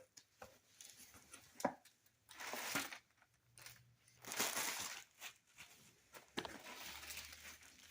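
A shipping box being pulled open by hand, its packaging tearing and crinkling in a few short bursts, with a couple of sharp knocks in between.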